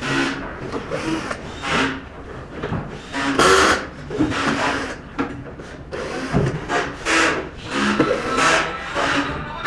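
A screwdriver working the fixing screws out of the power module's sheet-metal front panel: a run of rasping, scraping strokes about once a second.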